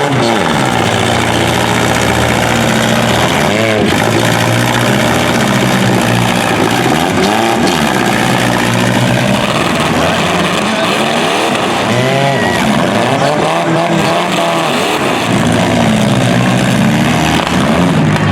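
Several demolition derby cars' engines revving up and down, overlapping, with their pitch rising and falling every second or two.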